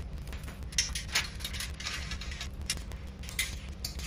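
A few light metallic clicks and taps as aluminum flagpole sections are handled and fitted together at a joint, over a steady low hum.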